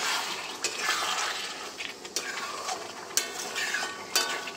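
Flat metal spatula stirring and scraping chicken curry around a metal kadai, with a few sharp clinks of the spatula against the pan over the sizzle of the masala being reduced.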